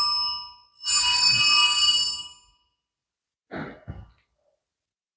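Altar bells rung at the elevation of the host, right after the words of consecration. The ringing dies away about half a second in, a second shake rings from about one to two and a half seconds in, and two short faint sounds follow near four seconds.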